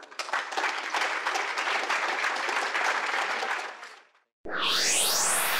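Audience applauding, dying away about four seconds in. After a brief gap, a rising whoosh sound effect begins.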